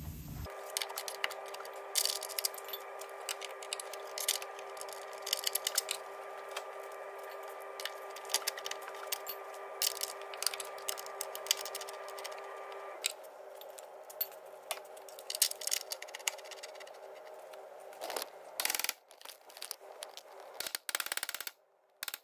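Intermittent metal clinks, scrapes and rattles of hand tools working on a car's front suspension arm bush and bolts, over a steady background hum.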